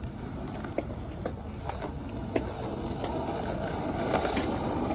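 Skateboard wheels rolling on concrete, a steady rumble that grows louder toward the end, with a few light clicks.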